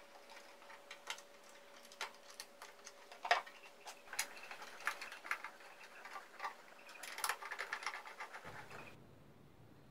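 Scattered light clicks and taps from parts of a Lombarte BDX48 belt-and-disc sander being fitted by hand: the plastic dust-collection cover and small screws. A faint steady hum lies underneath.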